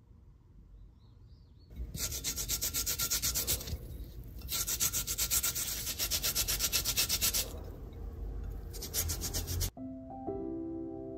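Lemon peel rubbed quickly back and forth on a small flat metal grater, a rasping scrape of about five strokes a second that comes in three spells with short breaks, as the peel is grated into zest. Soft piano music comes in near the end.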